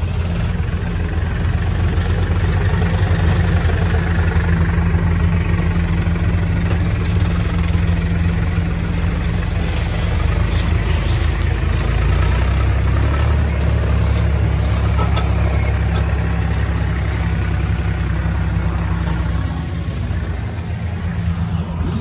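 A farm tractor's diesel engine works steadily under load as it hauls a paddy-laden trolley up onto the road. Its note deepens for a stretch about halfway through. The climb goes easily.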